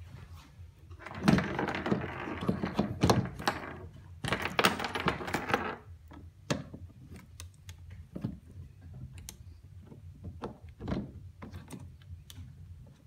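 Clattering and clicking of a 1-inch PVC stand-up bar being fitted by hand into Bimini-top hardware on a kayak's track: two spells of rattling in the first six seconds, then scattered single clicks and knocks.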